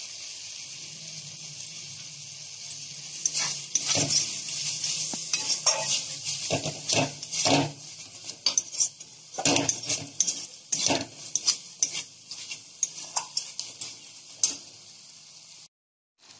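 A metal spatula scraping and clacking against a metal kadai as a thick pea-and-coriander masala is stirred. It starts about three seconds in and comes in quick, irregular strokes over a steady sizzle of frying oil. The spice paste is being fried until the oil separates.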